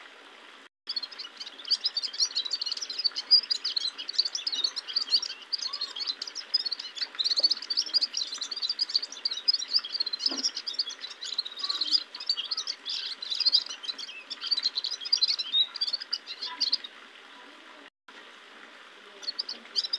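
Caged gulsar, a small red-headed finch, singing a long, fast twittering song that stops a few seconds before the end and starts again just before the end.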